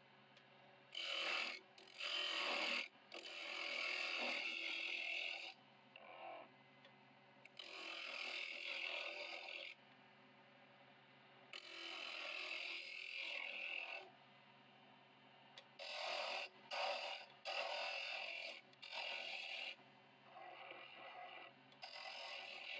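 A turning chisel scraping and cutting a spinning wooden blank on a wood lathe, smoothing it down. There are about ten hissing passes, some under a second and some several seconds long, and between them the lathe motor hums steadily.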